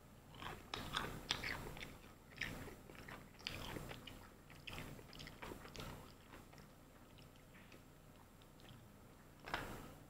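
Close-up eating sounds of someone biting and chewing crispy fried chicken, a run of short crunchy bites and chews in the first six seconds, then quieter, with one more crunch near the end.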